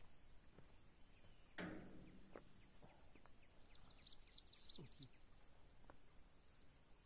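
Quiet outdoor ambience: a faint steady high insect chirring, with a few soft footfalls and shuffles on dry grass as a person walks up and sits down on a bench, the loudest of them about one and a half seconds in. A short burst of high chirps comes about four seconds in.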